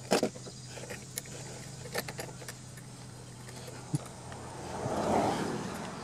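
Hand-handling of small lawn-mower engine parts: a few sharp clicks and clinks, then a brief rustle about five seconds in, over a steady low hum.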